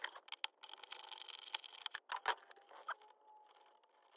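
Faint scattered clicks and scratches of fingers fitting a thin wire into a small screw terminal on a battery-monitor shunt. The loudest click comes a little past two seconds in, and it goes nearly quiet near the end.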